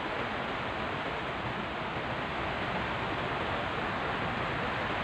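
Steady rain, an even rushing hiss that neither rises nor falls.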